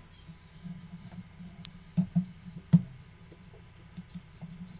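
A steady, high-pitched electronic whine from audio feedback between two computers joined to the same video call, the microphone picking up the other machine's speaker. A few soft knocks come about two to three seconds in.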